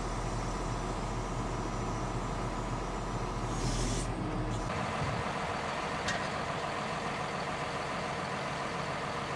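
John Deere tractor diesel engine running steadily, first heard from inside the cab with a short hiss about three and a half seconds in. After a cut about halfway through, the engine is heard from outside as a noisier, even drone, with a single sharp click a little later.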